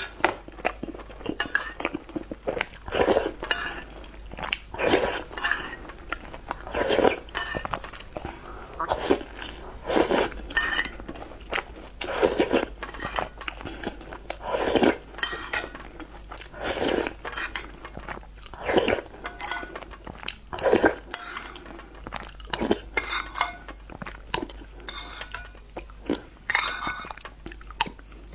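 Close-miked eating sounds: spoonfuls of soft tofu in chili-oil broth slurped and chewed, with a short wet slurp about every two seconds and a metal spoon clinking against the ceramic bowl.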